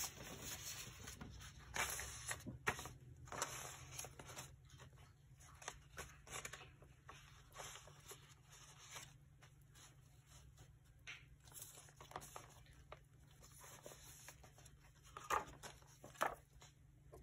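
Paper being handled and folded: irregular rustling and crinkling with a few sharper crackles.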